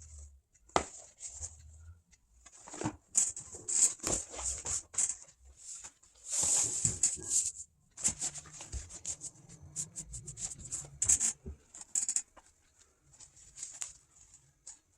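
Rustling and handling of upholstery material, with scattered clicks and taps and a longer rustle about six and a half seconds in.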